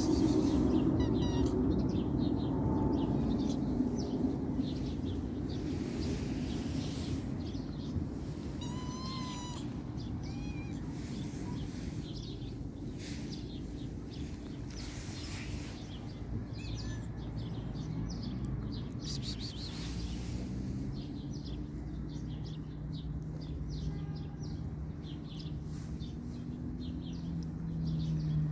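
Hungry mother cat meowing for food, several calls in the second half with a longer, louder meow near the end. A few short bird chirps come in between.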